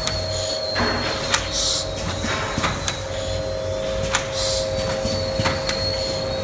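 YFMA-540A automatic laminating machine running: a steady mechanical hum with a constant mid-pitched tone, scattered clicks, and a short hiss about every three seconds.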